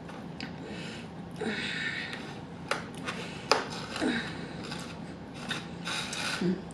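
Close-miked chewing of barbecue meat and bread: wet smacking and mouth clicks in irregular bursts, with a short hum of enjoyment about three and a half seconds in and another near the end.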